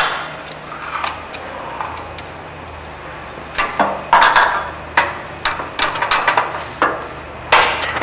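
Steel car-wash conveyor chain and hand tools clanking: scattered sharp metal clicks and knocks as the chain links are handled to take a pin out. The clatter gets busier about three and a half seconds in.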